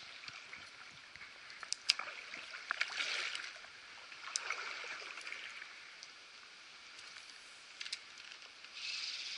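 Creek water and light rain making a soft steady hiss, with a few sharp ticks scattered through. A louder, steadier hiss comes in near the end.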